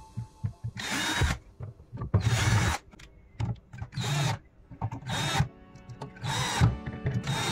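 Small handheld power tool run in short bursts, about six times, each lasting around half a second with brief pauses between.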